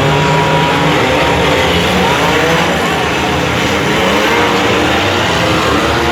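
Several compact demolition-derby cars' engines running and revving together, a loud steady din with pitches wavering up and down.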